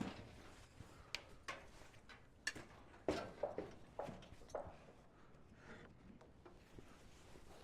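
Scattered light knocks and clicks from handling framing lumber and tools, about a dozen short sharp strikes, most of them between one and five seconds in.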